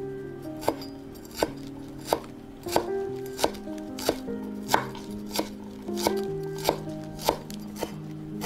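Large kitchen knife chopping fresh parsley on a wooden cutting board: a steady run of sharp knocks of blade on wood, about three every two seconds. Background music underneath.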